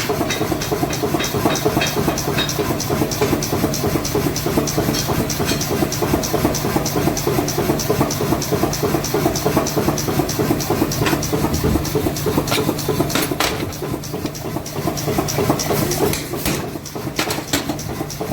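Heavy machinery running with a rapid, even knocking of about five beats a second over a steady low hum. The sound eases slightly near the end, with a few sharper knocks.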